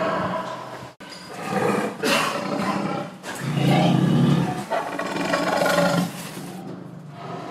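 A series of drawn-out, pitched animal calls, about four in a row, with the sound cutting out for an instant about a second in.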